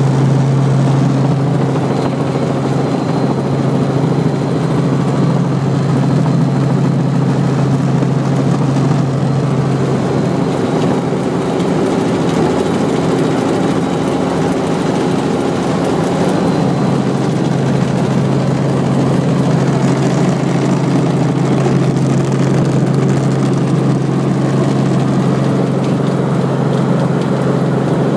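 Helicopter engine and rotor running in a steady loud drone with a low hum; the hum weakens for several seconds in the middle, then returns.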